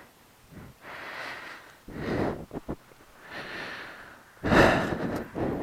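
Breathing close to a helmet-mounted camera microphone: a series of breaths about a second apart, with a sharper, louder exhale about four and a half seconds in.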